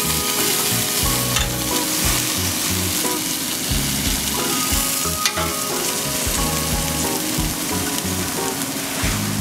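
Beef burger patties sizzling over hot charcoal on a Weber Go Anywhere grill: a steady frying hiss with a couple of sharp clicks.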